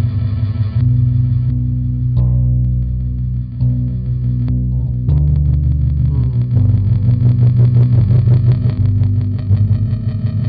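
Distorted electric bass played through a Catalinbread Csidman glitch delay pedal: sustained low notes with delayed repeats, breaking into rapid stuttering chops from about halfway through as the glitch effect cuts the sound.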